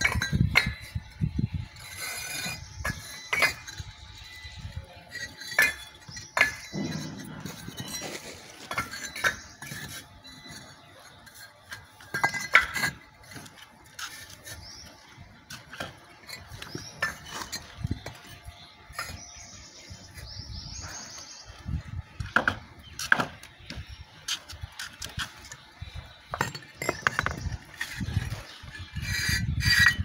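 Clay bricks being set by hand into a herringbone floor: irregular clinks and knocks as the bricks tap against each other and the floor.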